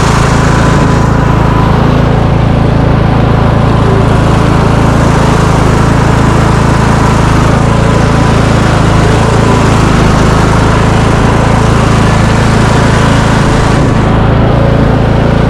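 Riding lawn mower engine running steadily and loud, with an even, unchanging note.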